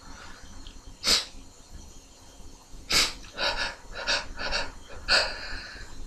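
A person's sharp nasal breaths: two strong sniffs about two seconds apart, then a quick run of short breaths in and out, typical of the build-up to a sneeze.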